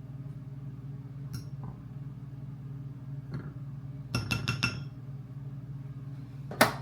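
Kitchenware clinking: a few light taps, then a quick run of ringing clinks about four seconds in, and a sharp knock near the end, over a steady low hum.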